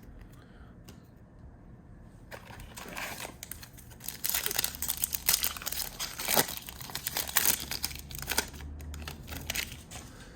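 Foil wrapper of a 2020-21 Panini Prizm basketball card pack crinkling and tearing as it is opened. The rustle starts about two seconds in and gets louder about four seconds in.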